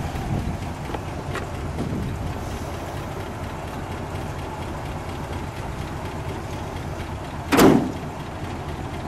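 1968 Cadillac DeVille's 472 cubic-inch V8 idling steadily, and about seven and a half seconds in its steel hood is slammed shut with one loud bang.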